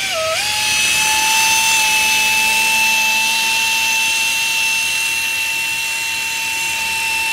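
Hand-held pneumatic tool on an air hose running at full speed: a steady high whine over a hiss of exhaust air, sagging briefly in pitch just after it starts.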